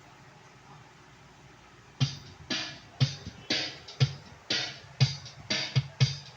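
Faint hiss, then about two seconds in a programmed drum-machine beat starts suddenly on the Roland XPS-10 keyboard: a kick about once a second with snare and hi-hat hits between, about two strokes a second.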